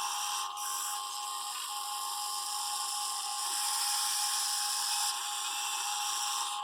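Small electric motors of a Huina 580 radio-controlled excavator whining, a steady high-pitched whir that changes in strength a few times as functions start and stop, loudest from about three and a half to five seconds in.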